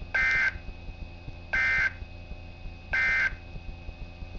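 NOAA Weather Radio SAME digital data bursts: three short buzzy two-tone bursts about a second and a half apart. Their shortness and place right after the warning text mark them as the end-of-message code that closes the alert.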